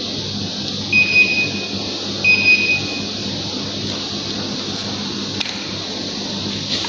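Steady rush of air with a low hum from a Daikin central air conditioner running. Two electronic beeps, each under a second long, come about a second in and again about a second later, and there are two faint clicks near the end.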